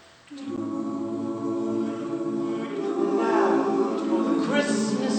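A high school choir singing held chords, coming in about a third of a second in, with some voices sliding in pitch near the end.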